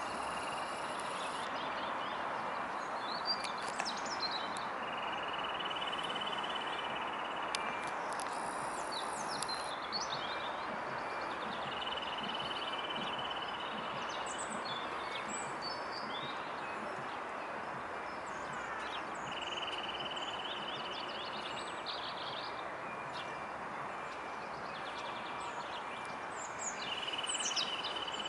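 Songbirds chirping and singing over a steady rushing background noise. One flat, rapid trill repeats about every seven seconds, about five times.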